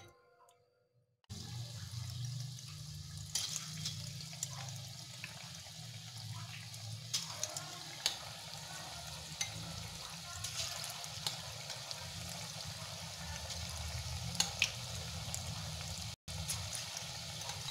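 Batter-coated paneer cubes deep-frying in hot oil in a kadai: a steady sizzle with scattered crackles and pops, starting about a second in.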